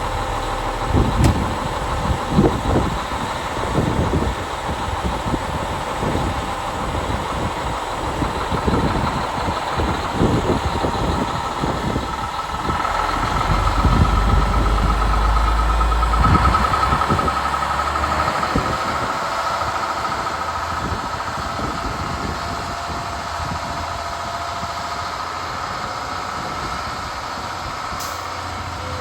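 International Paystar 5500i heavy truck's diesel engine running while the truck is driven, with the engine note shifting in pitch. There are several low thumps in the first few seconds, and the engine grows louder for a few seconds around the middle.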